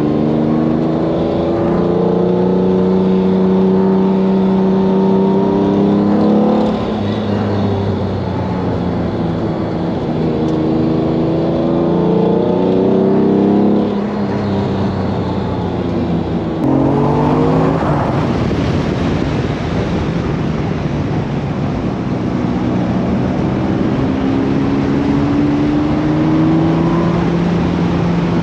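Lamborghini Diablo's 5.7-litre V12 accelerating uphill through the gears, its pitch climbing and then dropping sharply at each upshift, about every seven seconds. About two-thirds of the way through, the engine is heard from outside the car, joined by a rush of wind noise.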